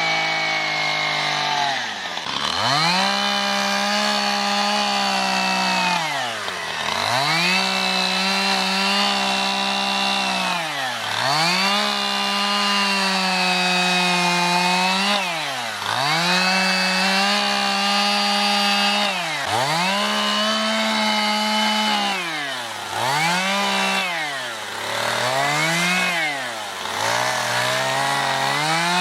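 Two-stroke chainsaw carving into a wood stump at high revs, its throttle let off every few seconds so the engine note drops sharply and climbs straight back, the drops coming closer together near the end.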